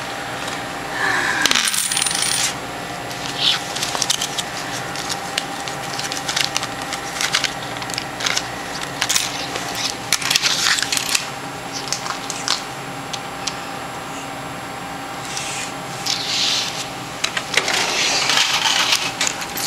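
Coins being counted out and set down on a hard checkout counter, clinking in irregular clusters of quick clicks, over a steady background hum.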